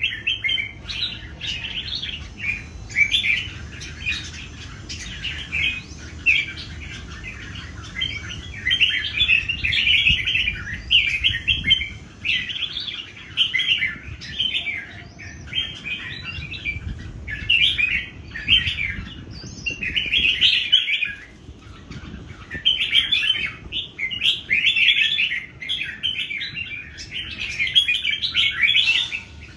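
Three red-whiskered bulbuls singing against one another: short, bright, warbling phrases following each other almost without a break, sometimes overlapping.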